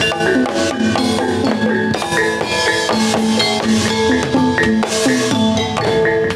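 Javanese gamelan music for a jathilan horse dance: hand drums beating a steady rhythm under metallophones playing repeated ringing notes.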